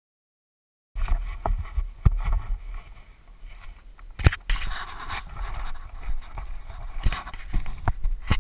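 After a second of silence, wind rumbles and hisses on a helmet-mounted action camera's microphone, broken by several sharp knocks and bumps.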